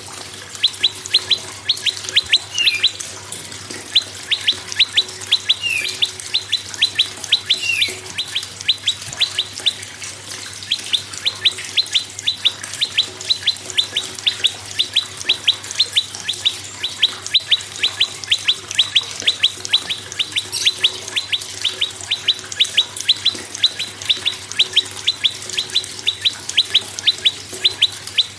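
Prenjak singing: fast, rattling trains of sharp, high repeated notes, several a second, broken by short pauses. A few lower slurred notes come in the first eight seconds.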